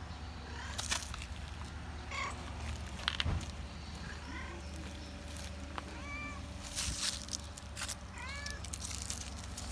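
Domestic cat meowing several times, each meow short and arched in pitch, with a few clicks and rustles in between.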